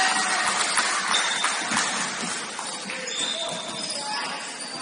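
Indoor basketball game noise: sneakers squeaking on the court, the ball bouncing, and players' and spectators' voices, slowly getting quieter.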